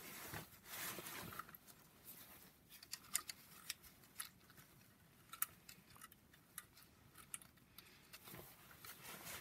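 Faint, scattered light metal clicks and ticks from small engine parts being handled by hand: the oil pump drive chain, its sprocket and a bolt being worked into place.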